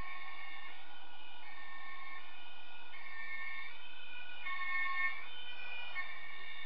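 German two-tone emergency siren (Martinshorn) sounding continuously, alternating a high and a low tone, each held under a second, heard from inside a moving vehicle over road noise.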